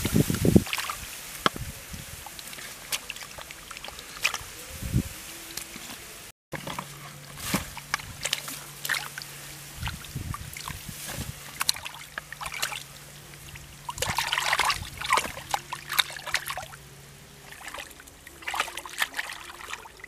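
Hands sloshing and splashing through shallow muddy water and soft mud while groping for fish, in irregular wet splashes and scrapes.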